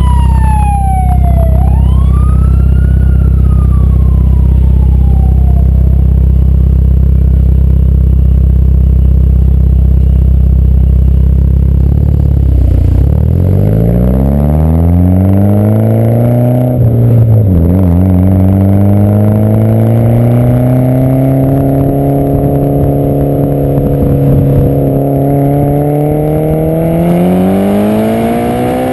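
Mitsubishi Lancer Evolution IX's turbocharged four-cylinder through a turbo-back exhaust, heard close from the rear bumper: it idles steadily, then about twelve seconds in pulls away and revs up, with a gear change near seventeen seconds and another near the end. A siren wails over the idle in the first few seconds.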